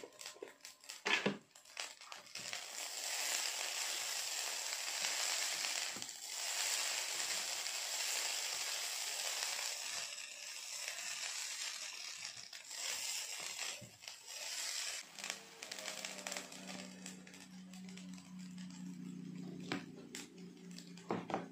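Fried rice being stirred and tossed with a spatula in an enamel pot: a dense, grainy scraping rustle of rice with scattered clicks of the utensil against the pot. It dies down after about fourteen seconds, and a low steady hum comes in for the last few seconds.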